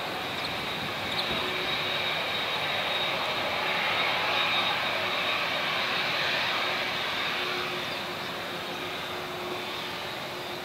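A Boeing 787-8's twin jet engines at taxi power as the airliner turns and rolls past: a steady high whine over a rushing hiss. It grows louder about halfway through and eases off toward the end.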